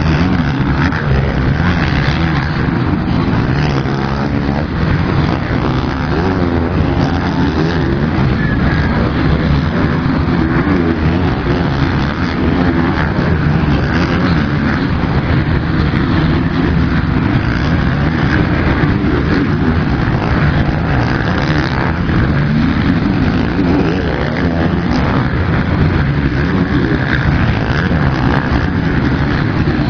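Motocross bikes racing: many engines revving and dropping in pitch together in a continuous loud din.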